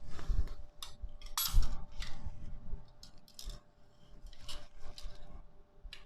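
Irregular light metallic clicks and clinks of steel bicycle spokes being handled and threaded through the hub and rim while a wheel is laced.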